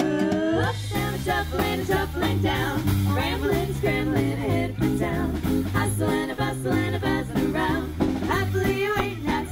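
Live swing band playing, horns over a bass line that steps from note to note on a steady beat.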